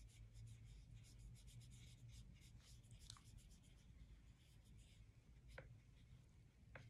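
Faint strokes of a paintbrush spreading paint across paper, a soft scratchy brushing repeated many times, with a few light taps; a low steady hum sits underneath.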